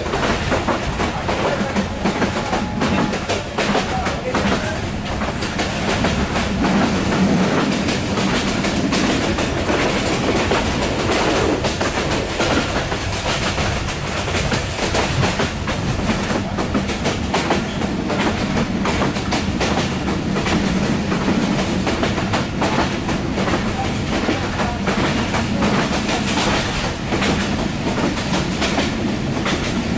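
A running passenger train heard from inside the coach: a steady rumble with the wheels clattering over the rail joints.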